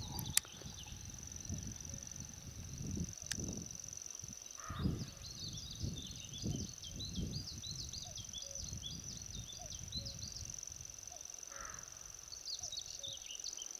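Outdoor meadow ambience: a small songbird sings a fast twittering song from about a third of the way in, pauses, and sings briefly again near the end. Under it runs a steady high-pitched whine, with low wind rumble on the microphone and a couple of sharp clicks early on.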